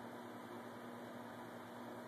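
Faint steady hiss with a low electrical hum: the background noise of the recording, with no distinct event.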